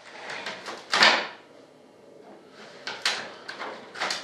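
A few sharp knocks and cracks, the loudest about a second in, as a fibreglass vertical-stabiliser part is worked free of its mold.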